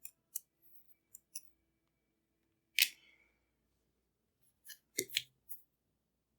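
Small sharp clicks and taps from a tiny screwdriver and the plastic parts of Bose QC-15 headphones being handled while the headband screws are taken out. The loudest tap comes about three seconds in with a brief ring, and a quick cluster of clicks follows near the end.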